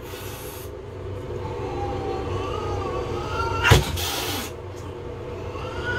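Feral domestic cat yowling in a long call whose pitch wavers slowly, with a second call starting near the end. A single sharp knock comes partway through as the plastic tote meets the bathtub.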